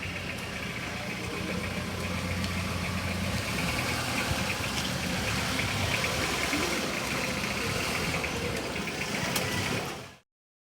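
Hyundai Starex van's engine running with a steady low hum. About three and a half seconds in, the hum gives way to a broader, brighter engine noise at a slightly higher level. The sound cuts off abruptly shortly before the end.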